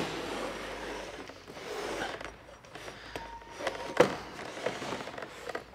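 Handling noise from a SolarisKit solar collector's absorber pipe being clipped into the notched clear plastic supports while the frame is turned on a table: soft rubbing and scraping with a few light clicks, the sharpest about four seconds in.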